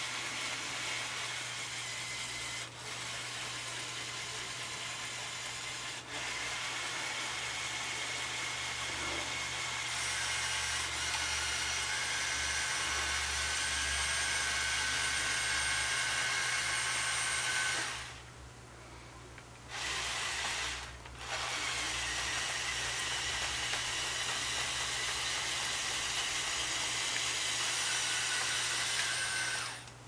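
LEGO Technic 42100 Liebherr R 9800 excavator's electric Control+ motors and plastic gear trains whirring as it drives on its tracks and moves its arm. The motors stop twice for a moment in the middle and cut off at the end.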